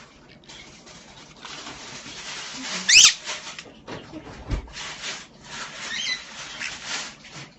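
A pet parrot gives one loud, sharp call that falls steeply in pitch about three seconds in, with a few fainter falling calls around six seconds. There is scratchy noise throughout and a low thump in between.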